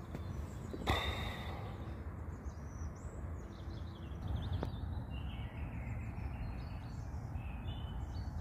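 Small birds chirping faintly in short calls over a steady low rumble of outdoor background noise, with a light knock about a second in.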